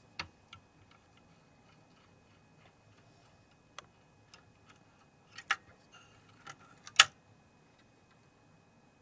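Scattered sharp clicks and taps of small tools and parts being handled while the colour-wheel motor's sensor is taken out of a DLP projector. There are a few light ticks early, a pair of louder clicks about five and a half seconds in, and the loudest single click about seven seconds in.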